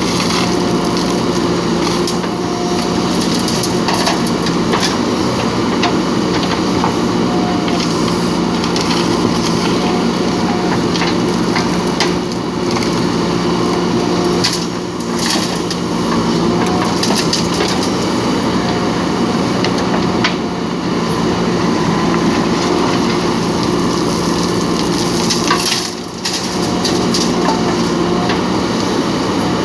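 JCB backhoe loader's diesel engine running steadily under working load, with frequent crunching and cracking of soil and stones being dug and dumped.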